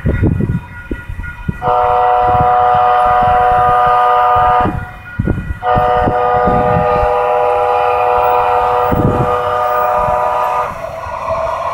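Two-car light rail train sounding its horn in two long blasts, the first about three seconds and the second about five, over a low uneven rumble.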